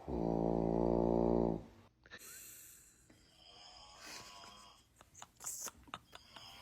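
A loud snore, held on one steady pitch for about a second and a half before dying away. It is followed by softer, higher-pitched rasping sounds and several sharp clicks.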